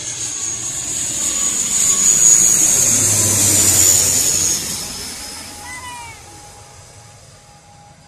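An ATR twin-turboprop airliner on landing approach passes low directly overhead. Its engine and propeller noise swells to a peak with a high whine, then drops in pitch and fades as it flies away. A few brief squeaky calls are heard about six seconds in.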